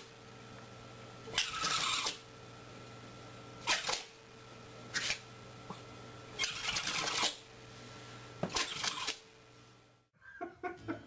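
Small terrier snorting with its nose to the carpet: five short, harsh bursts of breath spaced one to two seconds apart.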